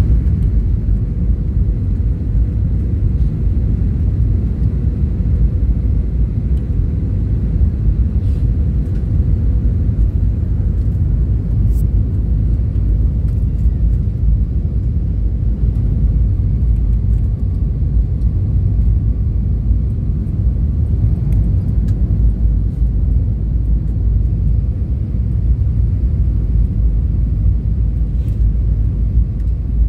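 Steady cabin noise inside a jet airliner descending towards landing: an even, low rumble of the engines and rushing air, unchanging throughout.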